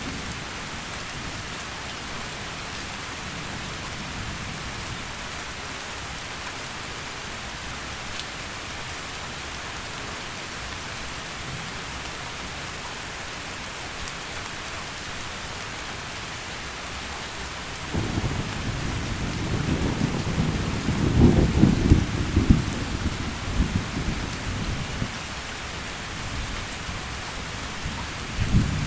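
Steady heavy rain falling, with a low rumble of thunder that breaks in suddenly about two-thirds of the way through, swells for a few seconds and dies away; a short low rumble of thunder comes again right at the end.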